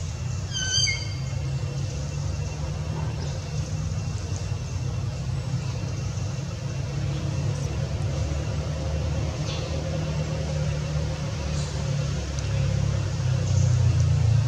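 Steady low engine rumble, like a motor vehicle idling close by, growing louder near the end. A brief high, falling squeak comes about half a second in.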